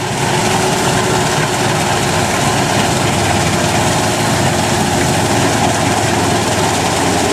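Kubota DC-93 Extra combine harvester running steadily under load as it cuts and threshes rice: a constant engine drone with a steady hum.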